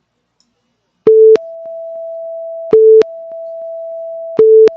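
Electronic warning-alert tone starting about a second in: a short, loud, lower beep followed by a longer, quieter, higher tone, repeating three times at an even pace. It is the alert sounding for an upgraded tornado warning.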